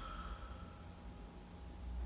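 Slow breathing: the tail of a long exhale fades out within the first second, then only faint room noise with a low hum.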